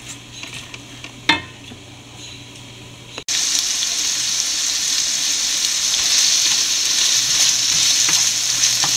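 Sliced onions frying in hot oil in a nonstick pan as a spatula stirs them. It is quiet at first, with a single tap of the spatula about a second in, then a steady loud sizzle starts suddenly a little over three seconds in.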